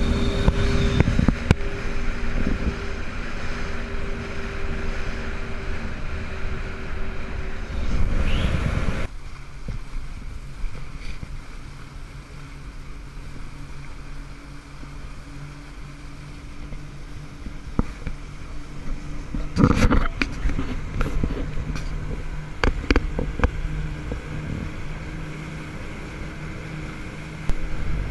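A motorboat engine running steadily, with wind and water noise. About nine seconds in the sound cuts abruptly to a quieter, steady low hum, broken by a few sharp knocks.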